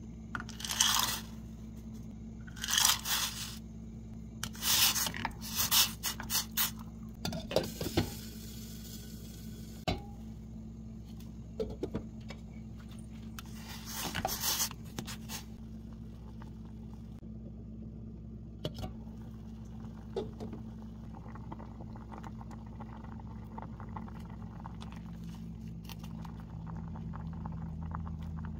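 Kitchen sounds at a stainless steel pot of water on a stovetop: a series of short scraping and rattling noises as salt and pasta go into the pot and a plastic spatula stirs against its sides, over a steady low hum. In the later part the sounds thin to a faint, even simmer of the water at the boil.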